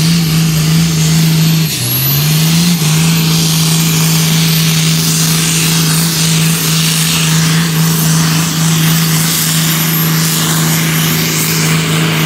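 Antique tractor engine running flat out under load while pulling a sled. Its speed sags briefly about two seconds in, then climbs back and holds steady.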